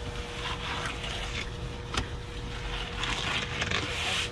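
Fillet knife scraping and cutting as the skin is taken off a large wreckfish fillet on a cleaning table, over a steady low hum, with one sharp click about two seconds in.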